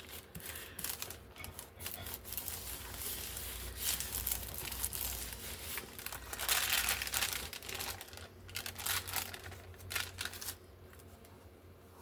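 Paper rustling and crinkling as it is handled, in irregular bursts that stop about ten and a half seconds in.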